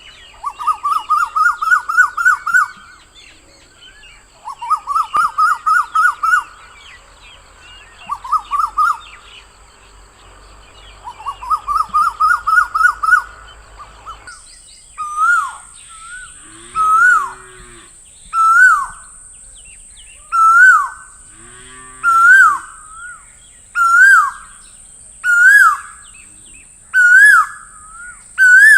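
Asian koel (koyal) calling. First come four bouts of about ten quick notes each, a few seconds apart. Then, about halfway through, a single loud call repeats roughly every second and a half. A steady high-pitched hiss runs underneath.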